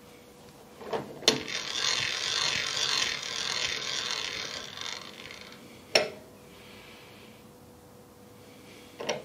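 Two clicks, then about four seconds of dry scraping and rubbing and one more sharp click, from the milling-machine setup as a crankshaft's alignment is checked with a plunger-style dial gauge. A faint steady hum sits underneath.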